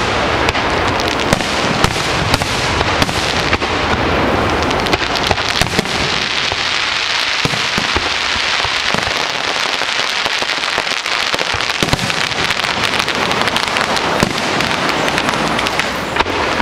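Fireworks display: aerial shells bursting in quick succession, with many sharp bangs over a continuous crackling.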